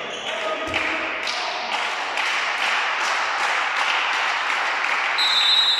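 Spectators clapping in a steady rhythm, about two to three claps a second, growing louder. A ball bounces on the hall floor once near the start, and a short high whistle sounds near the end.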